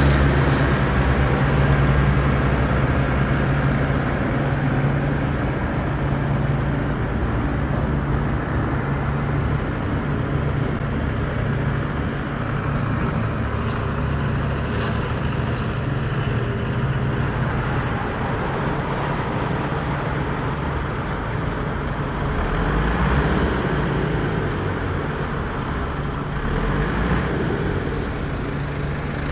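Small electric motors and gearboxes of radio-controlled construction vehicles running steadily with a low, constant hum.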